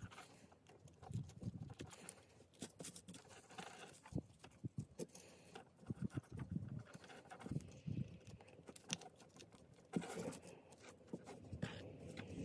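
Faint, irregular clicks, taps and rustles of hands working jumper wires into the screw terminals of an Arduino Nano carrier board with a small screwdriver, with one sharper knock about ten seconds in.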